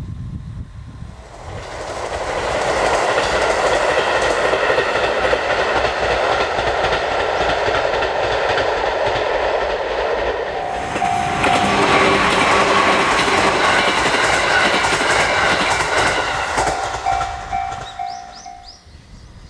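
A Sobu Main Line train passing over a level crossing: wheels rumbling and clattering on the rails, building about two seconds in, turning brighter with steady tones about halfway through, then fading near the end.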